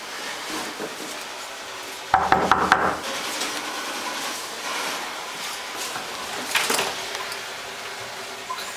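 A quick burst of about six knocks on a wooden door about two seconds in, then rustling and one more sharp knock or rattle near seven seconds.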